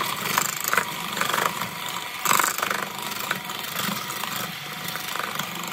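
KitchenAid electric hand mixer running at a steady whine, its beaters whipping eggs and sugar in a bowl.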